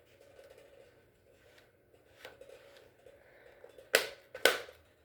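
Two sharp plastic clicks about half a second apart near the end, with a few faint ticks before them, from a Nerf blaster being handled and worked.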